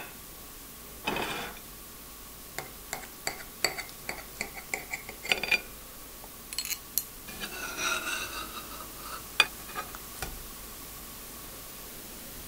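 Steel knife and fork cutting a potato omelette on a plate: a series of light clinks and taps of metal on the plate, with a longer scrape about a second in and another around eight seconds in.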